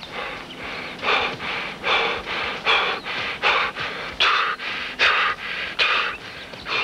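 A man panting hard as he jogs: a loud breath out about every 0.8 s, with a softer breath between.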